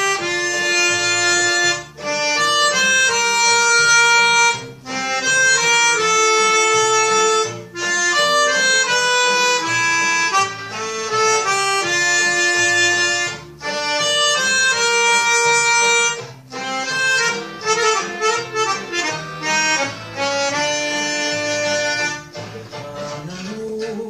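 Melodica playing the song's melody in held phrases of two to three seconds each, with a run of shorter, quicker notes past the middle, over a quieter accompaniment. The melodica stops about two seconds before the end, leaving only the accompaniment.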